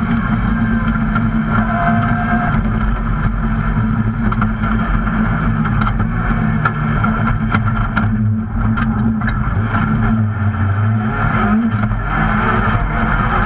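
Rally car's engine running hard at speed, heard from inside the roll-caged cabin, with many sharp clicks and knocks over the engine noise. The revs dip briefly about eight seconds in and pick up again near the end.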